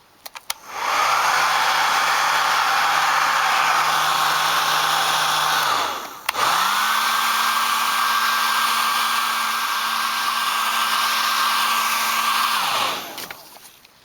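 Electric heat gun blowing in two runs: it spins up about a second in, runs steadily for about five seconds and winds down, then starts again at a higher pitch and runs about six more seconds before winding down. It is force-drying freshly applied leather filler.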